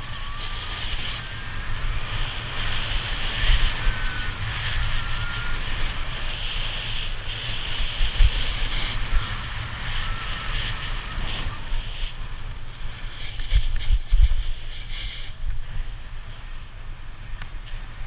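Snowboard sliding and carving down packed snow, a steady scraping hiss that surges with the turns and eases off for the last couple of seconds. Wind rumbles on the camera microphone.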